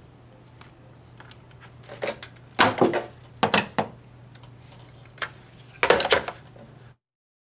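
Clatter and knocks of a mains power plug and its cable being handled and knocked about as it is taken up to a wall socket, in several clusters with the loudest about two and a half, three and a half and six seconds in, over a steady low hum. The sound cuts off abruptly near the end.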